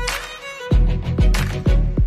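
Background music with a steady bass-drum beat under a sustained melody. The beat drops out for the first moment, then comes back in.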